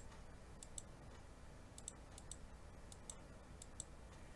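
Faint computer mouse button clicks, several quick pairs of clicks, over a low steady hum.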